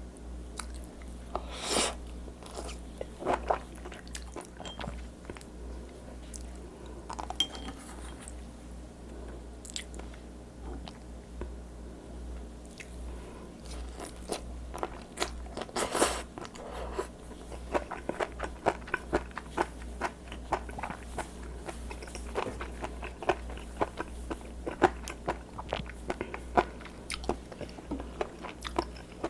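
Close-miked chewing of raw seafood: wet crunching and biting, with sparse clicks at first and a dense run of small crackling clicks in the second half. A steady low hum lies underneath.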